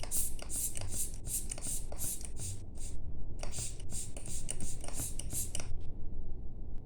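Quick puffs of air from a hand-squeezed air blower, about three a second, drying a freshly cleaned watch part; the puffs pause briefly midway and stop shortly before the end.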